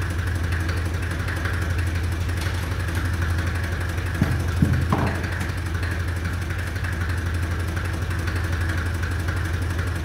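Fendt Farmer 2 tractor engine idling steadily, with a few short knocks about four seconds in.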